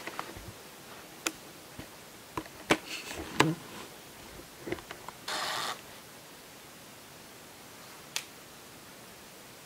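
Small-room hiss broken by a few sharp clicks and knocks, with a short burst of rustling noise about halfway through.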